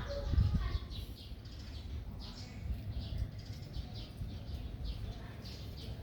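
Short, high chirping animal calls repeating about two or three times a second, over a low rumble that is loudest in the first second.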